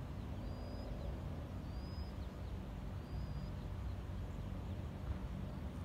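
Outdoor evening ambience: a steady low rumble, with a short, thin, rising high-pitched chirp repeated three times about a second and a quarter apart.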